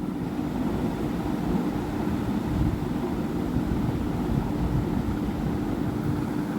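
Gas stove burner running under the pan: a steady low rumble with a constant hum.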